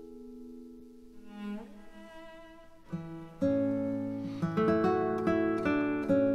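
Instrumental background music: held notes, quiet at first, then fuller and louder with a deep bass line from about three and a half seconds in.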